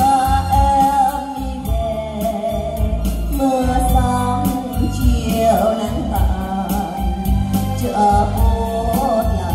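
A woman singing a slow Vietnamese ballad into a handheld microphone, holding long notes that waver with vibrato, over a steady instrumental accompaniment.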